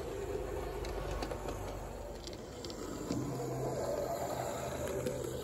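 Hornby OO-gauge Terrier model locomotive, DCC-fitted, running along the track: the steady hum of its small electric motor and the rattle of its wheels on the rails, with a deeper hum joining about three seconds in.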